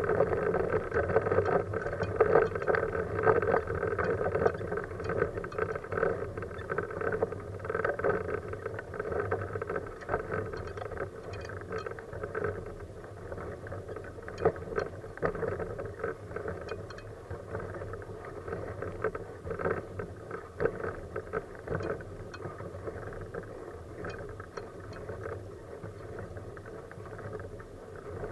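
Manual wheelchair with a FreeWheel front wheel rolling along asphalt: a steady rolling rumble with many small clicks and rattles, easing off somewhat over the second half.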